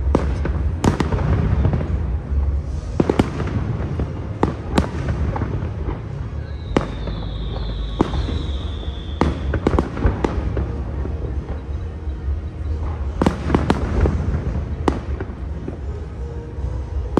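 Aerial firework shells bursting overhead: a string of sharp bangs at uneven intervals over a steady low rumble. About six and a half seconds in, a high whistle sounds for about three seconds, falling slightly in pitch.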